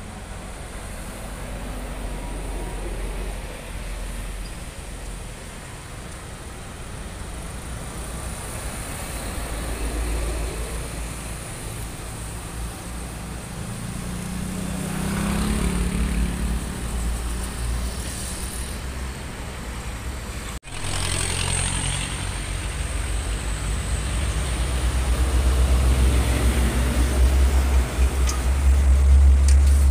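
Heavy trucks driving past one after another: diesel engines running with tyre noise, a low rumble that swells as each passes. There is a sudden break about two-thirds of the way through, then a louder, deeper rumble builds toward the end.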